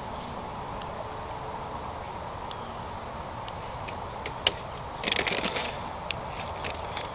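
Small handling noises while a figurine is being painted: one sharp click about four and a half seconds in, then a brief crackling rustle and a few light ticks, over a steady background hiss with a faint high whine.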